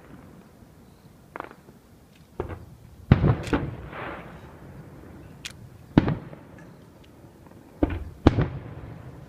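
Aerial fireworks shells bursting: a series of sharp booms at irregular intervals, the loudest about three, six and eight seconds in. Several are followed by a short trailing crackle and rumble.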